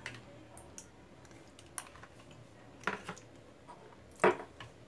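A spoon clicking and tapping against a bowl as sour curd is scraped out into the pan: a few light, separate clinks, the loudest just after four seconds in.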